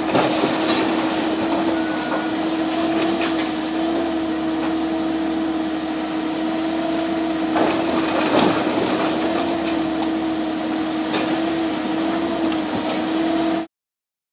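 A demolition machine running with a steady whine while the timber of a termite-rotted house cracks and crunches, with a few louder cracks a little past halfway. The sound cuts off suddenly near the end.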